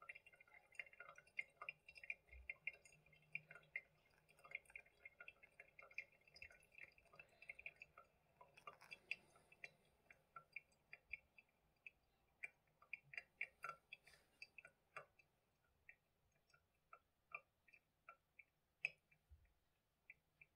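Pour-over coffee draining through a paper filter: faint drips and tiny pops, close together at first and growing sparser toward the end.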